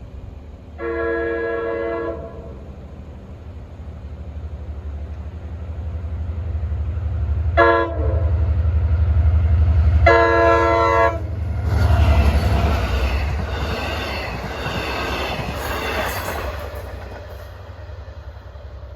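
Long Island Rail Road diesel locomotive's chime horn sounding a long blast, then a short one and another long one, over a diesel engine rumble that grows louder as the train nears. After the last blast the train passes with wheel clatter and a thin high squeal, which fades near the end.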